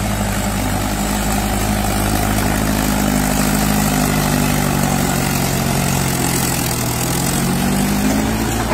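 Mahindra 475 DI tractor's four-cylinder diesel engine running hard under heavy load as it hauls a fully loaded trolley out of a pit. The engine note sags past the middle and climbs again near the end.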